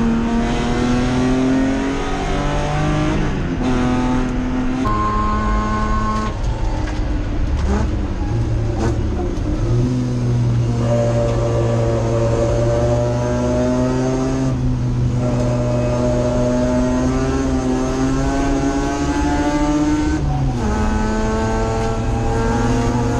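Touring car racing engine heard from inside the cockpit, running hard under load. Its note climbs steadily and drops sharply at gear changes, for example about 20 seconds in.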